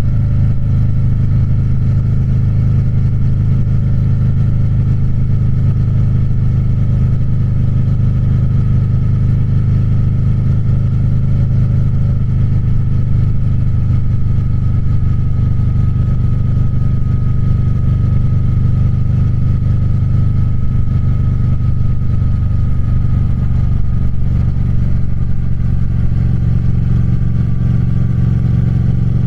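Triumph Speed Twin's parallel-twin engine running steadily at an even pace, with a faint high whine that drifts slightly lower in pitch.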